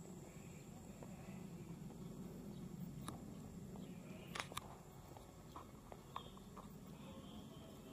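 Faint outdoor ambience with a steady low rumble and soft footsteps on a concrete road, broken by a few sharp clicks, the loudest about four and a half seconds in.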